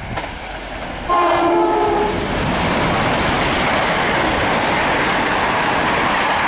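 Two coupled Chiltern Railways Class 168 diesel multiple units sound a horn blast about a second in and then pass through the station at speed, a loud steady rush of wheels and engines.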